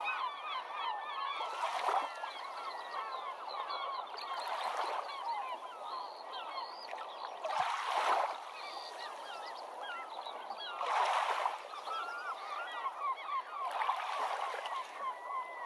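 A large flock of birds calling continuously, many short calls overlapping, with a rushing swell of noise rising and falling about every three seconds.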